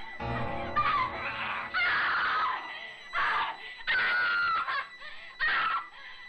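A woman screaming and crying out in distress as she is attacked: about five short cries, one after another, each under a second long.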